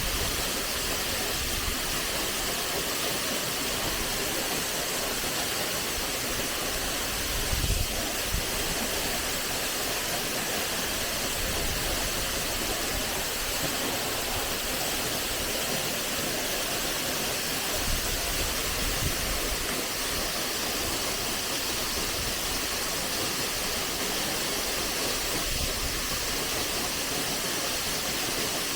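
Steady rushing hiss of a waterfall's falling water, with a few brief low thumps.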